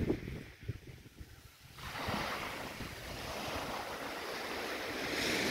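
Small waves breaking and washing up a shingle beach: an even hiss of surf that builds over the last few seconds. Wind buffets the microphone briefly at the start.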